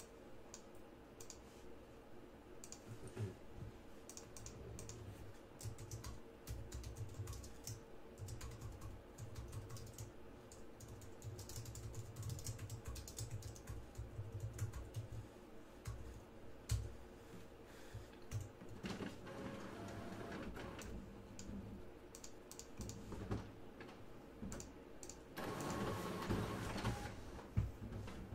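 Computer keyboard typing: faint, irregular keystrokes, with a louder stretch of rustling noise near the end.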